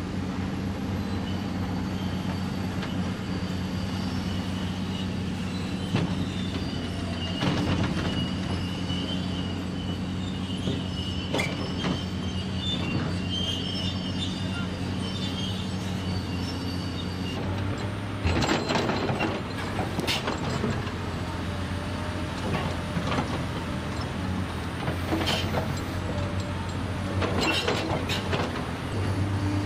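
Caterpillar 336E excavator's diesel engine running steadily while it digs and slews, with a faint high whine in the first half. The bucket clanks and scrapes on rubble and soil, the knocks coming thickest in the second half.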